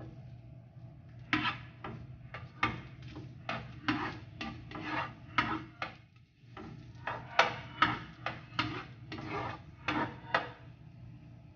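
Spatula scraping across a nonstick frying pan, pushing garlic cloves around in a little oil, in a run of short strokes about two a second.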